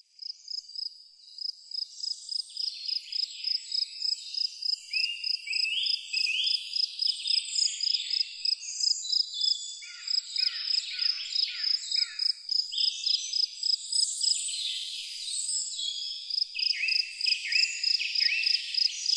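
Birds chirping and calling over a steady, high-pitched pulsing note that repeats about three or four times a second: a garden nature soundscape.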